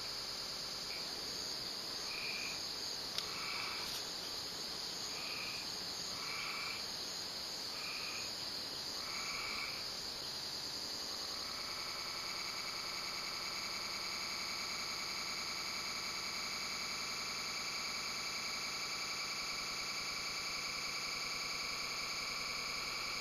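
A steady high-pitched chorus of night insects. For the first ten seconds a short call repeats about six times, roughly every second and a half, and then gives way to a steady trill. There is one brief click about three seconds in.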